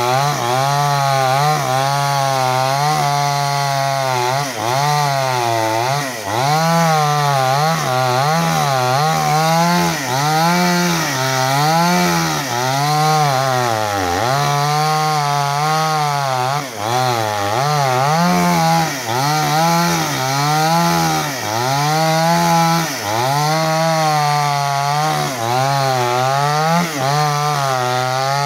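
Chainsaw cutting through a thick log, running continuously, its engine pitch dipping under load and picking up again every second or two as the chain bites into the wood.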